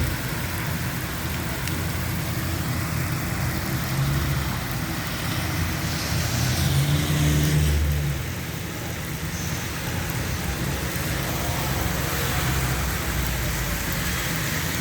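Steady rain falling, with a low rumble underneath that swells and grows louder between about six and eight seconds in.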